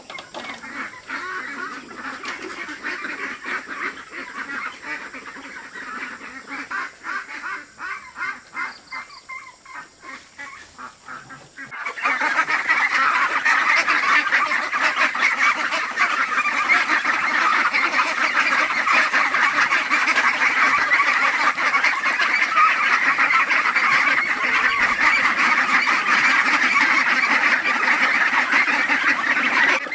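A flock of domestic fowl calling over one another in a dense, continuous chatter, stepping up sharply in loudness about twelve seconds in.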